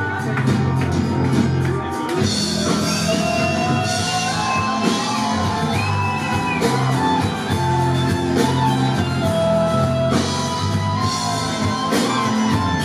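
Anatolian rock band playing live on electric guitars and drums, with steady bass notes under a lead line that slides in pitch a few seconds in.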